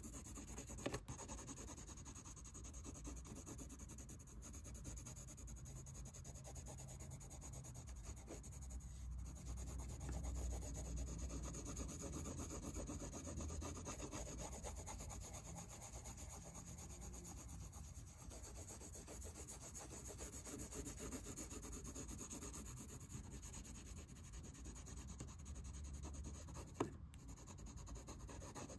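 Blue colored pencil scratching across sketchbook paper in continuous back-and-forth shading strokes. There is a single sharp tap near the end.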